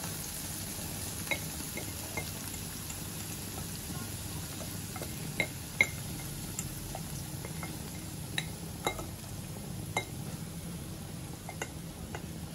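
Shredded cabbage and carrot tipped from a bowl into a nonstick wok of onions frying in oil: a low, steady sizzle with scattered light clicks and taps of the bowl against the pan.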